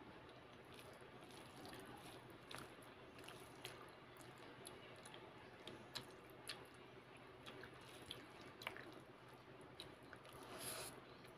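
Faint, close-miked sounds of hand-eating: fingers squishing and mixing rice with mashed potato on a paper plate, with scattered sharp wet clicks and a longer squelch near the end.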